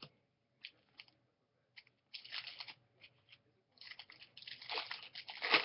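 Trading cards being handled close to the microphone: a few soft clicks, then scratchy rustling in two stretches, the second longer and loudest near the end.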